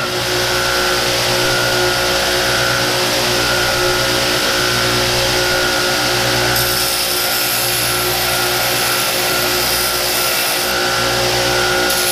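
Large belt sander running steadily with a fresh belt, a cast iron part with brazed welds pressed against it and being ground flat. A higher hiss joins about halfway through.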